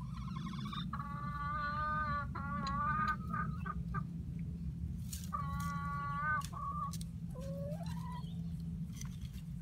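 Hens clucking and calling while pecking at scattered oats: three drawn-out calls of about a second each, with shorter clucks between and a rising call near the end.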